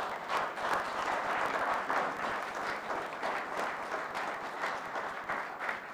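Applause from a small group in a meeting chamber after an oath of office, dense clapping that begins at once and thins out near the end.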